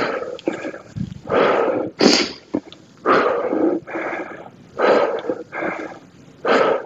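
A man breathing hard while doing dumbbell squats, with a loud, forceful exhale about every one and a half to two seconds, in rhythm with each squat.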